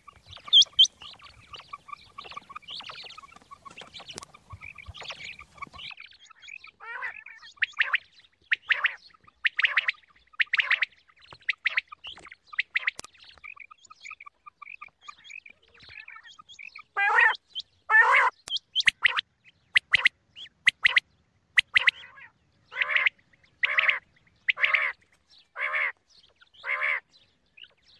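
Quail (batair) calling. Soft rapid chatter at first gives way to loud, harsh single calls about once a second, ending in a run of five evenly spaced calls.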